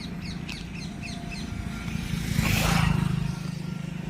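A bird calling in a quick series of short, high, falling chirps, several a second, over a steady low hum. About two and a half seconds in, a loud rushing noise swells and fades within about a second.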